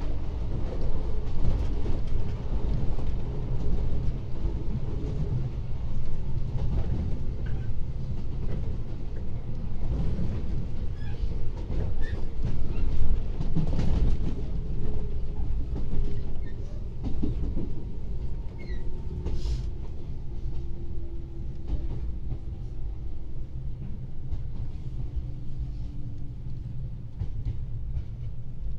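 JR 113 series 0-subseries electric train running on the line, heard from inside the car: a steady low rumble of wheels and car body, with irregular clatter over rail joints. It grows a little quieter in the second half.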